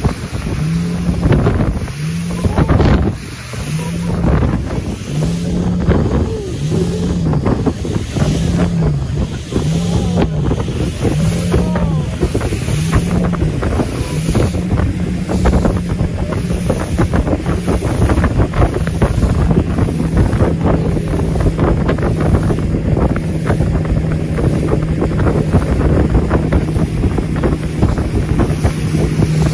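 Motorboat's motor running under way, with water rushing and splashing along the hull and wind buffeting the microphone. The motor's low hum wavers up and down about once a second for the first half, then holds steady.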